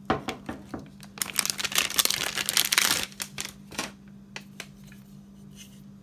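Packaging crinkling and tearing as a new hard drive is unwrapped: scattered clicks, then a dense rustle about a second in that lasts a couple of seconds, thinning to a few clicks.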